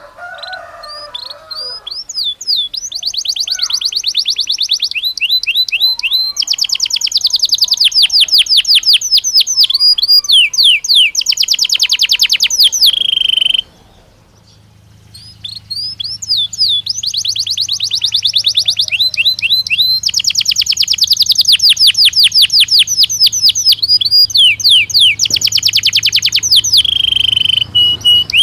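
Belgian canary singing two long song phrases of fast rolling trills and rapid repeated notes, broken by a short pause about halfway; each phrase ends on a held lower note.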